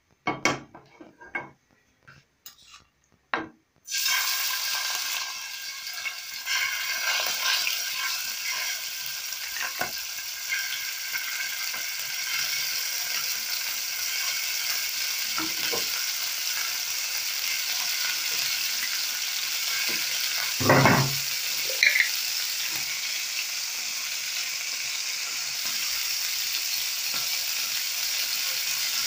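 Chicken pieces frying in hot oil in a frying pan. A few clicks and knocks come first, then about four seconds in a steady sizzle starts suddenly as the chicken goes into the oil. Metal tongs knock against the pan about twenty seconds in.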